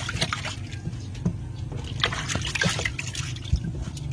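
Water splashing and sloshing as a hand stirs through a shallow tub of live, writhing eels, with irregular small splashes and drips.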